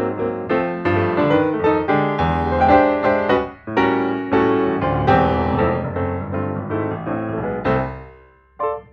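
Background piano music, a steady run of notes that thins out and fades near the end.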